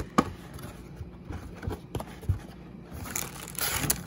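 Cardboard retail box being handled: a few sharp taps and knocks of the cardboard, then about a second of crinkly rustling near the end as the hand reaches in among the wrapped trading-card packs.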